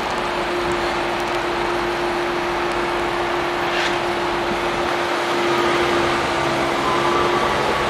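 NS Sprinter Lighttrain (SLT) electric multiple unit pulling into the platform and running past close by, a steady hum and rolling noise. There is a brief high squeak about halfway through. The sound grows a little louder, with added motor whine, as the train draws level.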